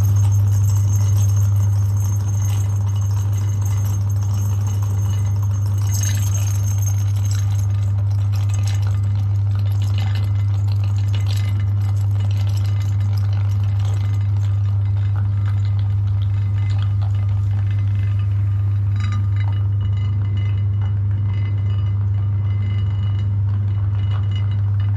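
Electric meat grinder running with a steady low motor hum, with light clinking and rattling over it.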